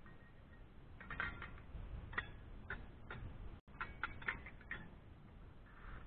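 Light clinks and taps of small hard objects being handled, several in quick clusters, some with a brief metallic ring.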